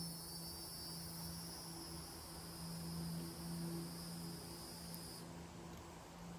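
Insects buzzing steadily in a high pitch, cutting off abruptly about five seconds in, with a low steady hum beneath.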